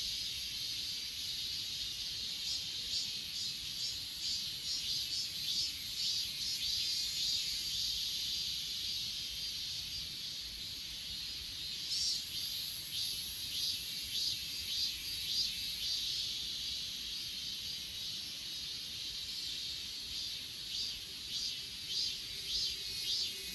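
Chorus of grass insects (crickets and katydids) chirping in fast, overlapping pulses, over a continuous very high-pitched trill.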